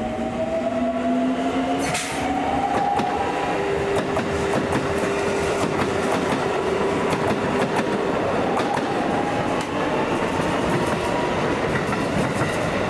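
Keikyu 1000-series four-car electric train passing close and pulling away. Its traction motors whine, rising in pitch over the first few seconds, holding a steady tone, then rising again. Throughout, the wheels clatter over rail joints and points.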